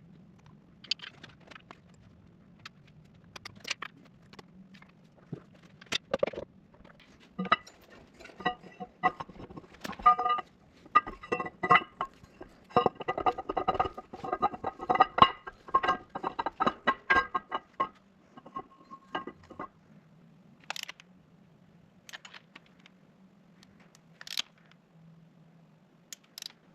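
Steel engine parts clinking and tapping as tappets and the camshaft go into a 12-valve Cummins block: irregular sharp metallic clicks, busiest and ringing in the middle stretch, sparser near the start and end.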